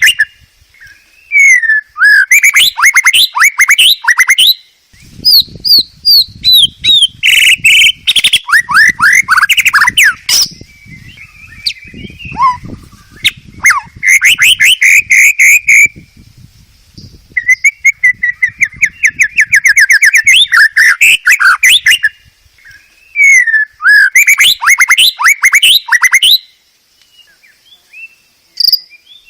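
White-rumped shama singing loud, varied phrases of rapid whistled sweeps and trills. The song comes in bursts of a few seconds, broken by short pauses.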